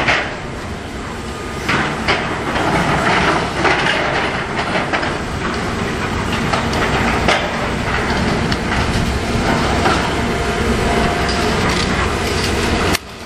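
Building demolition by a John Deere excavator: a steady heavy mechanical din with repeated crashes and clatter of breaking concrete and rubble. The din drops off suddenly near the end.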